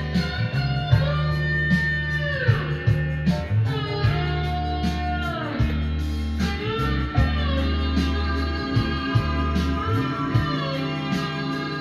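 Recorded music with electric guitar playing bending, sliding notes over a steady bass line. It is played fairly loud through a Kenwood KA-9100 integrated amplifier and its speakers and picked up by the room microphone.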